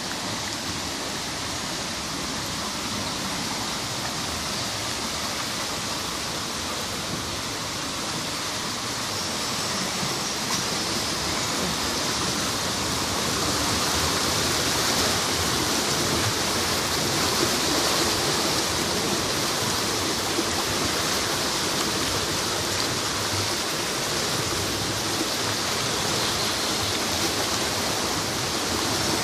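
Fast-flowing floodwater rushing past in a swollen river: a steady, unbroken hiss of moving water that grows louder about ten seconds in.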